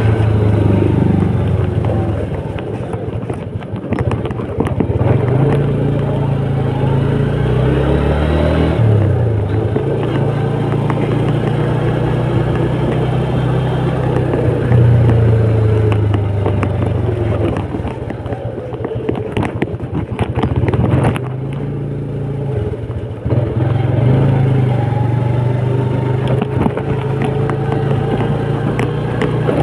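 Small motorcycle engine running hard at riding speed, its note rising and dropping several times as the throttle changes.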